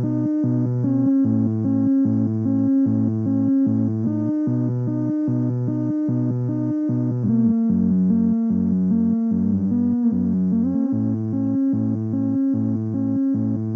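Korg Volca Bass synthesizer playing a repeating ambient sequence at 75 bpm, with delay and reverb, heard through a small practice amp. Partway through, the pattern drops lower for a few seconds with some sliding notes, then returns to the opening phrase.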